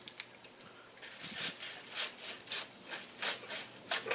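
A saw cutting through wood in repeated rasping strokes, about three a second.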